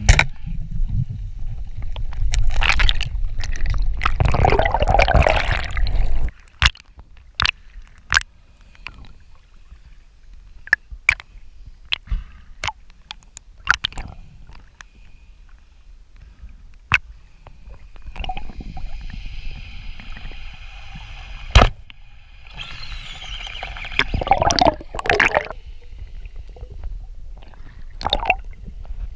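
Underwater sound of a speargun shot at a wahoo: a sharp crack, then several seconds of loud, low churning water rush. After that, scattered sharp clicks over quiet water and, later, two spells of hissing, bubbling water noise.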